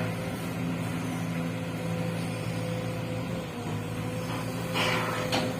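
Sumitomo SH210 excavator running steadily, its diesel engine humming with a steady higher whine over it. A short burst of harsh noise comes near the end.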